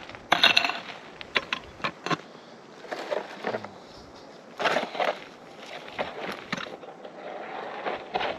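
Prospector's pick digging into stony ground, with irregular strikes and the scrape and rattle of loosened dirt and gravel.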